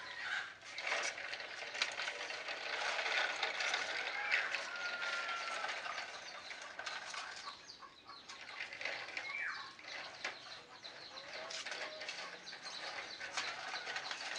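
Light clicks and rustling of hands fitting a part on a car's rear suspension, with a few short bird calls in the background.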